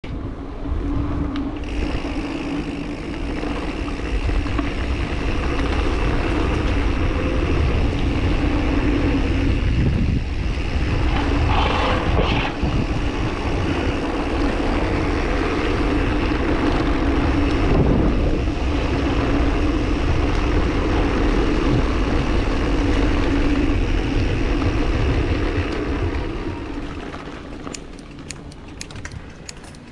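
Mountain bike riding at speed: steady wind rushing over the microphone mixed with the rumble and hum of the tyres on paving. It dies down near the end as the bike slows, with a few light clicks.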